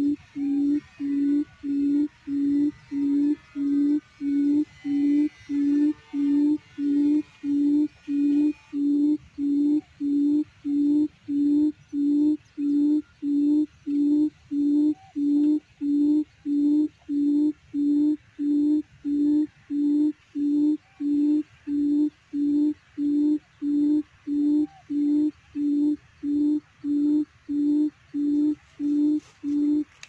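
A quail's low hooting call, one short hoot about every 0.7 seconds, repeated with machine-like regularity as a trapping lure. Faint song from other birds sits behind it for the first several seconds.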